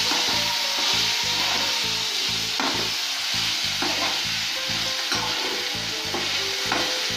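Boiled potatoes and ginger-garlic paste sizzling in hot coconut oil in a frying pan, stirred with a slotted spatula that scrapes across the pan a few times.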